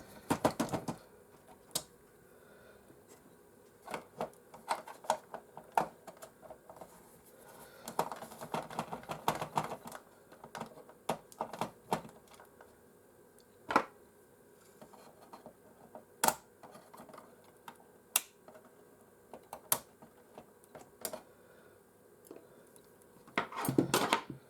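Irregular light clicks and taps of hard plastic and metal PlayStation 4 parts being handled on a workbench, with a few sharper single clicks and two short clusters of rapid tapping.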